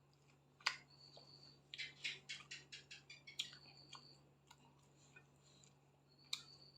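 Eating sounds: faint wet mouth clicks and smacks from chewing, with a quick run of smacks about two seconds in.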